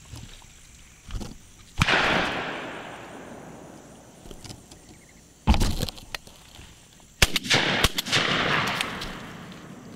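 Shotgun shots at passing doves: a loud report about two seconds in and another about seven seconds in, each trailing off into a long rolling echo, with a shorter burst between them.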